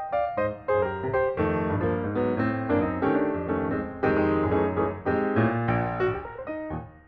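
Background piano music, a steady run of struck notes.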